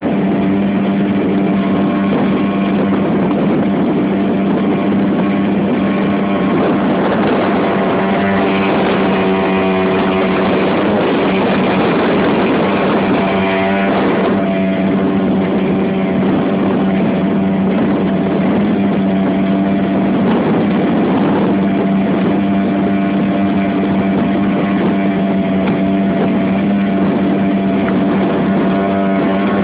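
5 hp Yamaha outboard motor running at a steady speed, pushing a small inflatable boat, its pitch unchanging, over a steady hiss of water and wind.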